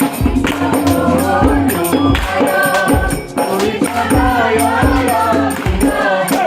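A group of women singing devotional Holi songs together, with hand percussion keeping a steady beat about twice a second.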